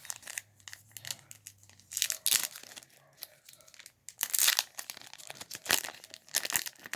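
Trading card booster pack wrapper being torn open and crinkled, in a series of irregular crackling bursts, the loudest about two seconds and four and a half seconds in.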